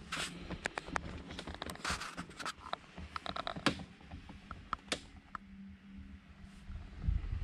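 Irregular small clicks, taps and rustles of handling as someone moves about the boat with a handheld camera among loose tools and hardware, thinning out after about five seconds, then a heavier low thudding of movement near the end.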